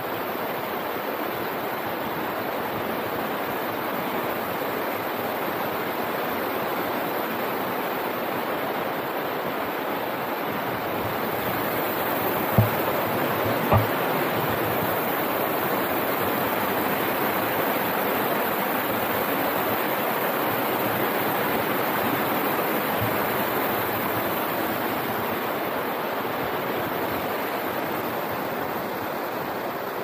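River rapids: a steady rush of white water tumbling over rocks. Two dull knocks about a second apart near the middle, and a fainter one later.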